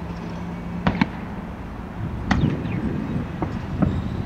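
A steady low outdoor rumble broken by sharp clicks or cracks: two about a second in, one a little after two seconds, and two more near the end.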